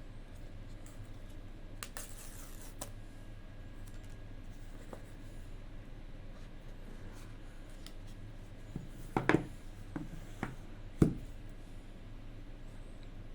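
Packaging of an iPhone 14 Pro being handled during unboxing: faint scraping and a few light clicks, then a cluster of knocks about two-thirds through and one sharp tap soon after.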